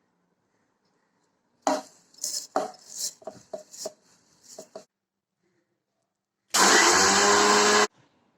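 A row of irregular knocks and clatters, then a mixer grinder runs in one short burst of about a second and a half, grinding red poha (flattened rice) to powder, and cuts off suddenly.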